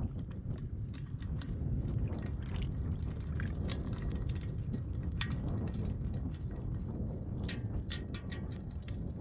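Water splashing and dripping in many short, irregular bursts over a steady low rumble.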